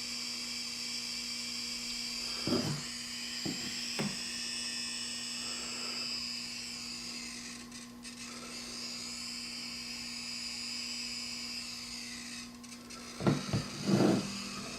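Rook EMF meter's sound alert: a continuous high-pitched electronic whine that wavers slightly in pitch, set off by the electromagnetic field of a plugged-in radio and surge protector, over a low steady hum. A few brief louder sounds come about two and a half to four seconds in and again near the end.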